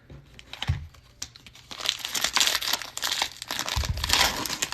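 Cellophane wrapper of a trading-card cello pack being torn open and crinkled, a dense crinkling that starts about two seconds in, with a couple of low thumps.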